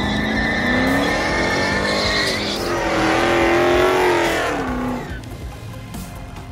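Car engine revving hard with tires squealing as the car spins donuts; the engine note climbs, holds, then drops away about five seconds in.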